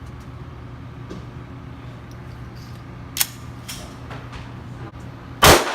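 Gunshots at an indoor shooting range: a fainter sharp crack about three seconds in, then one much louder shot near the end, over the steady low hum of the range's ventilation.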